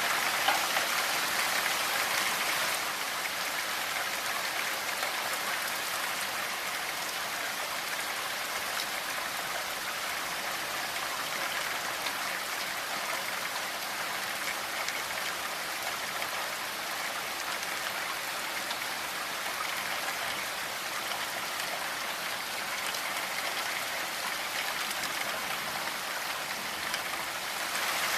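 Steady rainfall, drops pattering on a surface in a continuous hiss, a little heavier near the start and the end.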